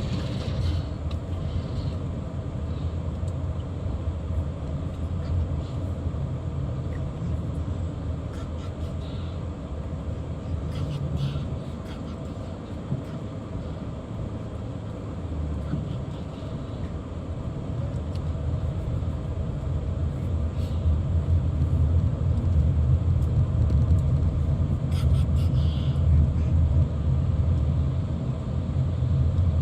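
Steady low rumble of a car driving on the road, engine and tyre noise, with a few faint clicks. It grows somewhat louder about two-thirds of the way through.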